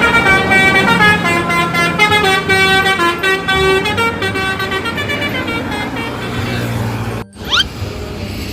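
Indonesian 'telolet' bus horn playing a tune of several notes that step up and down in pitch for about five seconds, over a running engine. A brief rising glide follows near the end.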